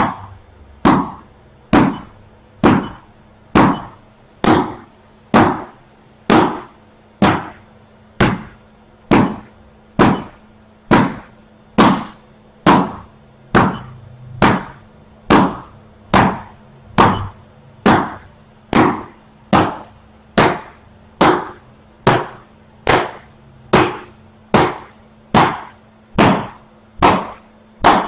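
Evenly spaced sharp hits, a little more than one a second, each striking an electronic taekwondo body protector and scoring a point on its electronic scoring system.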